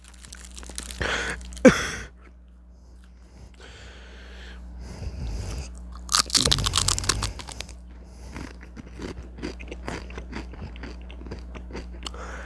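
Close-up crunching of potato chips being bitten and chewed: a loud crunching bite about six seconds in, then a run of rapid, close-spaced chewing crunches. A short loud noise comes about a second and a half in, and a low steady hum runs underneath.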